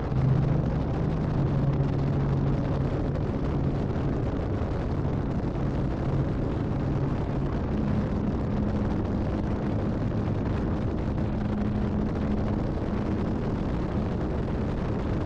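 Harley-Davidson Fat Boy's V-twin engine running as the bike rides along, with heavy wind rush on the microphone; the engine note rises partway through as it picks up speed.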